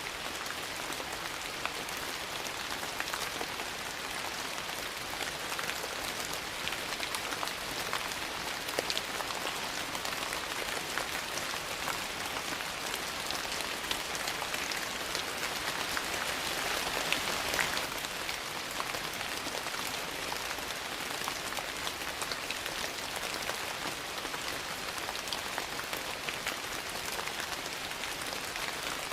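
Steady rain falling, an even hiss dotted with many small, sharp drop taps, swelling slightly a little past the middle.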